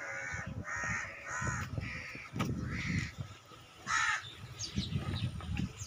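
Crows cawing, about six short caws spread over the first four seconds, one louder caw about four seconds in, over a low rumble.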